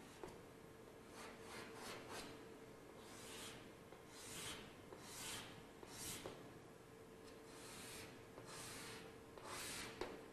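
Chalk scraping across a blackboard in a series of short drawing strokes, about a dozen, with a few sharp taps as the chalk meets the board, the sharpest near the end.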